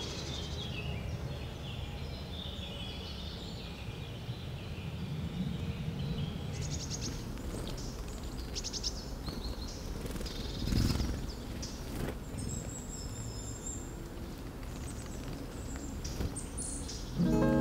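Woodland ambience with several small songbirds calling: short high chirps and a few rapid trills scattered throughout. A low thump about eleven seconds in.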